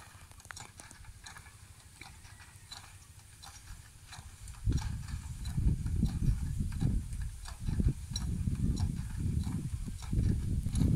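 Wind buffeting the microphone: an irregular low rumble that sets in about five seconds in, over faint scattered ticks and rustling.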